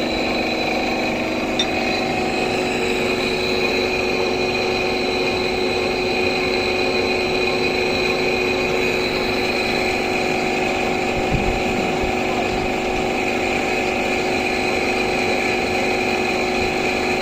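Machine tool running steadily while machining a cast brass pinion gear, a constant hum with a steady whine over it. A short knock comes about eleven seconds in.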